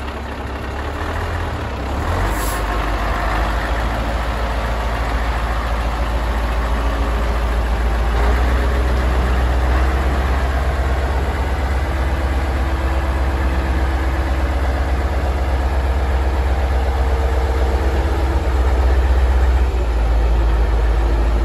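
Scania T143 truck's 14-litre V8 diesel idling steadily.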